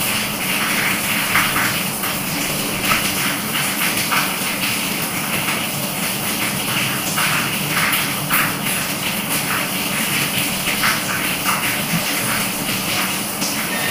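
Small irregular crackling clicks of boiled Brazilian pine seeds (pinhão) having their tough shells split and peeled by hand, with chewing, over a steady hiss.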